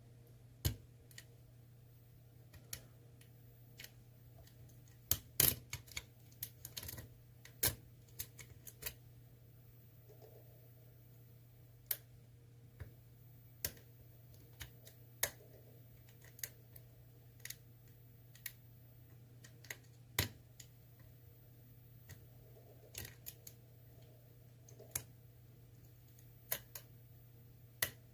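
Irregular sharp metallic clicks of a steel lock pick working the spring-loaded pins inside an ASSA Twin Combi lock cylinder. There is a close cluster of clicks about five to seven seconds in, then scattered single clicks every second or so.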